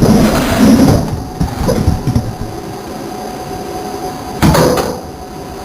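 Metal parts being handled: rattling and scraping at first, a few sharp knocks, then a loud clatter about four and a half seconds in.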